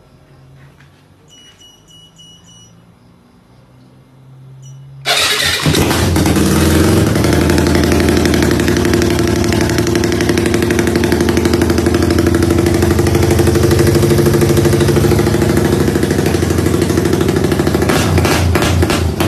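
Yamaha Y15ZR (MX King 150) single-cylinder four-stroke engine starting suddenly about five seconds in, after a few faint beeps. It then runs at a loud, fast-pulsing 'rumble idle' set by modified ignition timing ('timing kuda').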